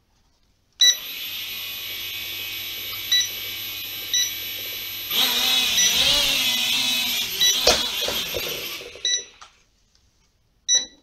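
Eachine E58 mini quadcopter's small motors and propellers spinning up and running steadily, then louder and wavering in pitch as it lifts off and flies briefly, with a sharp knock about eight seconds in and the motors winding down near nine seconds. Short electronic beeps sound several times.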